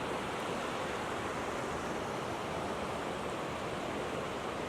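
Steady rushing of running water, an even hiss with no breaks or single events.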